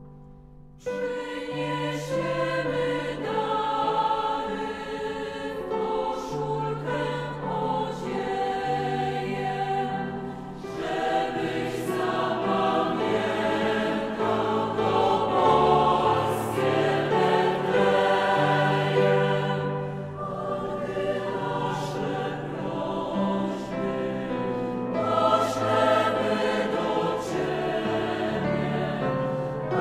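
A choir singing a slow piece in held notes, with steady low notes underneath. It comes in suddenly about a second in.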